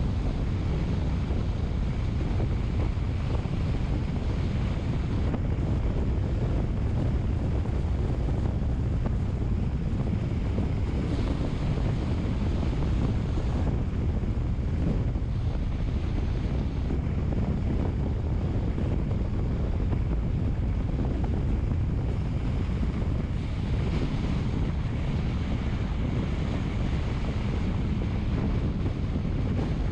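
Steady, unbroken low rumble of wind noise, with a faint high hum above it.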